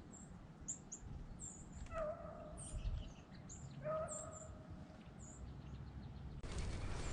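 Distant rabbit hound baying as it runs a rabbit: two long, even bawls about two seconds apart, with small birds chirping. Near the end a louder, steady rustling noise takes over abruptly.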